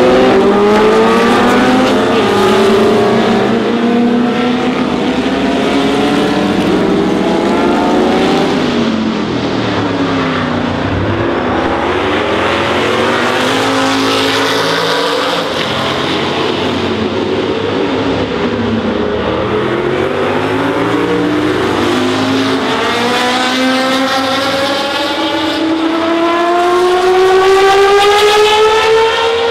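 Historic sports-prototype race cars running at racing speed: several engines overlap, rising in pitch through the gears and dropping on lifts and downshifts as they pass. Near the end one engine, a Matra MS670C's V12, climbs steadily in pitch and peaks loudly as it accelerates past.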